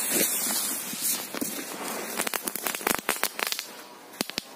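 Burning fuse of a Korsar-4 firecracker hissing and crackling, with a run of short sharp crackles in the middle and no bang: the firecracker is a dud.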